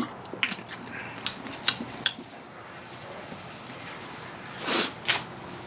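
A few light clicks and taps as a drinking glass is handled, then two short breathy sounds near the end as he sips from it, over a steady faint room hiss.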